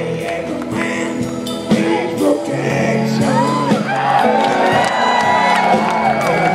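Live rock band playing a slow ballad, with voices singing and gliding pitched lines over sustained chords.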